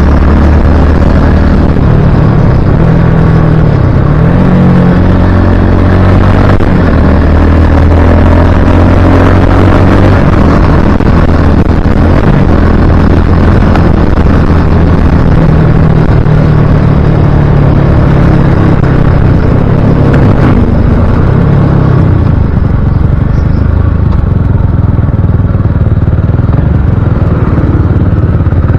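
Motorcycle engine running under way, its pitch rising and falling with the throttle, over heavy low wind rumble on a helmet-mounted action camera's microphone. The recording sits close to full scale, as loud as it can go, the blown-out wind-noise problem the rider is trying to cure.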